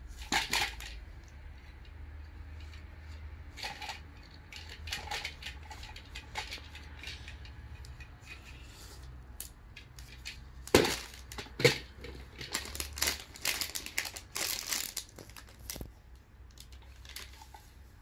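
Scattered clicks, knocks and rattles of a hard plastic toy dinosaur being handled, with two sharper knocks about eleven seconds in.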